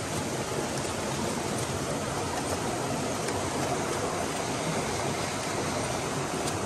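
Steady rush of a waterfall and river water, with a few faint crinkles of aluminium foil as a foil-wrapped fish is opened.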